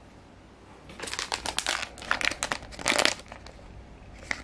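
A glossy foil toy blind bag crinkling as hands pick it up and handle it: a dense run of sharp crackles from about one second to three seconds in, then a single crackle near the end.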